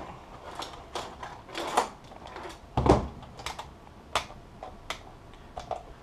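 Irregular clicks and knocks of bench gear being handled: a multimeter's rotary dial and test-lead plugs clicking, with one heavier thump about three seconds in as something is set down on the bench.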